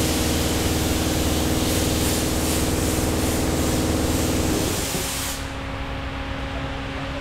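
Compressed air hissing loudly from a workshop air hose for about five seconds, then cutting off, over the steady hum of shop machinery that changes pitch a little before the hiss stops.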